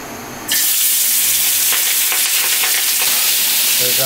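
Spice-coated pieces of aair fish, a Bengali catfish, going into smoking-hot oil in a kadai. The oil breaks into a loud sizzle about half a second in and keeps frying steadily.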